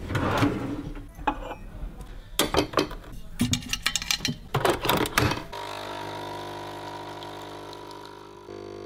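A drawer opening and metal coffee capsules clicking and clinking in a glass jar, then, from about five and a half seconds in, a capsule coffee machine's pump humming steadily as it brews coffee into a mug.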